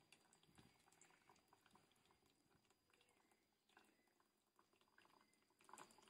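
Very faint trickle and small drips of water falling from a straw into a plastic tub of water, the water pushed out of a bottle by an inflated balloon fitted over its neck.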